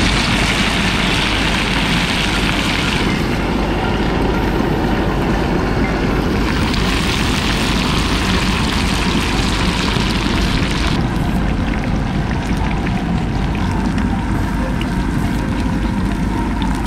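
Spice-coated soya chunks deep-frying in very hot oil in a kadai: a loud, steady sizzle that turns brighter and hissier at the start and again in the middle.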